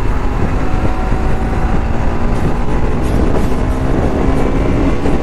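Bajaj Pulsar AS200's single-cylinder engine running at a steady cruise while the motorcycle rides along, heard from a rider-mounted camera.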